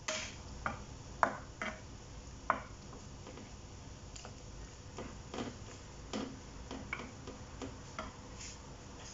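Wooden spatula knocking and scraping against a metal wok while stirring shrimp in thick sauce: irregular clicks, the two sharpest about one and two and a half seconds in, then lighter taps.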